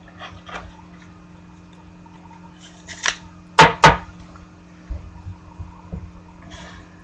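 Trading cards being handled: light rustles and ticks, a brief rustle about three seconds in, then two sharp clicks in quick succession. A low steady hum runs underneath.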